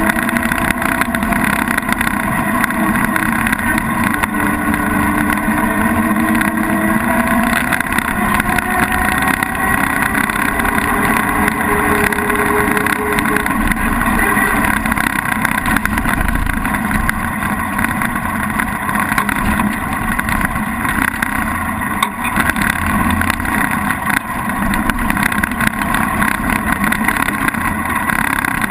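1923 Diatto 20S engine running steadily under way, its pitch slowly rising over the first dozen seconds or so.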